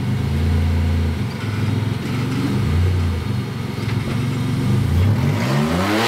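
Rock-crawler buggy's engine revving in repeated surges under load as it climbs a steep rock ledge, with the revs rising sharply near the end.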